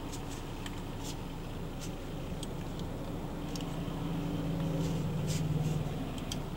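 Highway traffic heard from inside a parked car: a steady rumble that swells as a vehicle goes past, loudest about four to six seconds in, then fades. A few faint clicks sound over it.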